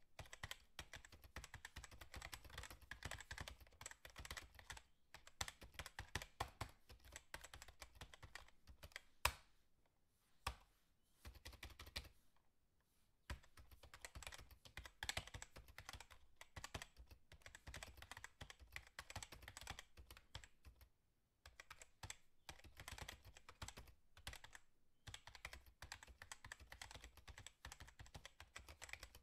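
Faint, rapid, irregular light clicking and tapping, like typing on a keyboard, broken by a few short pauses, with one sharper knock about nine seconds in.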